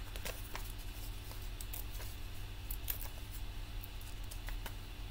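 Faint, scattered rustles and light taps of card stock being handled on a desk, over a steady low hum.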